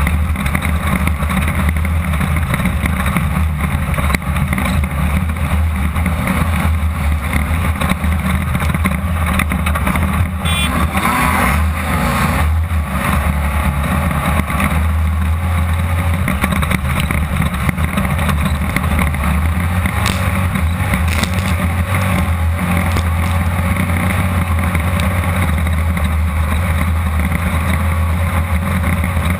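Off-road race buggy's air-cooled 1600 cc Volkswagen engine running hard at steady high revs, heard from inside the open cockpit with wind and course noise over it. A brief knock about ten and a half seconds in.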